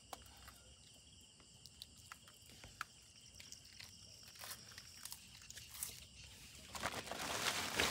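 Faint small clicks and splashes of hands working a fishing net in shallow water. Near the end the splashing grows louder as someone wades.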